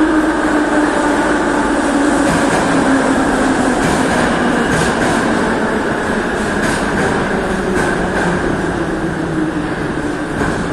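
A metro train pulls into an underground station and slows, its running whine slowly falling in pitch over a steady rumble. A run of wheel clacks comes in the middle.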